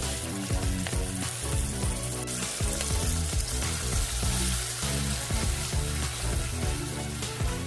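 Food sizzling and frying in a hot pan, stirred now and then, over background music.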